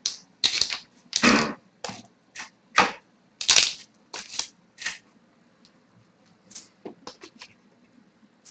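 Hockey trading cards and foil pack wrappers being handled: a quick run of short rustles and slides, then a few light clicks after about six seconds.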